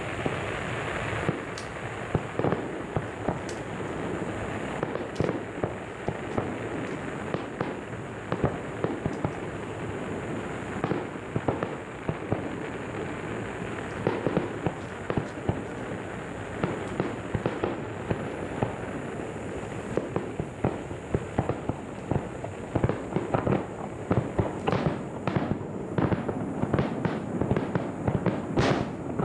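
Aerial fireworks going off: a steady crackle and hiss of bursting shells, with many sharp bangs and pops. The bangs come thicker and faster near the end.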